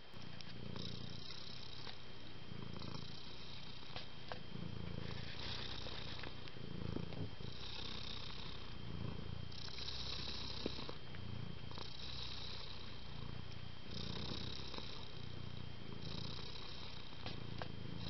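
Domestic cat purring steadily, the purr swelling and easing in a slow breathing cycle about every two seconds.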